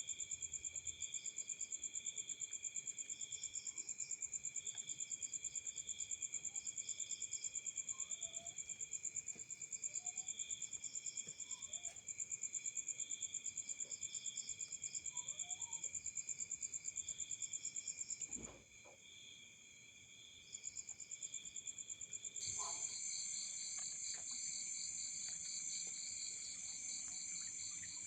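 Chorus of crickets and other insects, several high trilling songs layered together. About eighteen seconds in there is a single knock and the highest trill drops out briefly; a few seconds later the chorus comes back louder, with a new pulsed trill joining.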